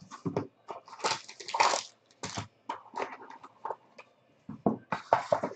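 Hands handling a trading-card box, its card sleeves and the cards: a run of irregular rustles, scrapes and taps, busiest in the first two seconds, with a short lull before more handling near the end.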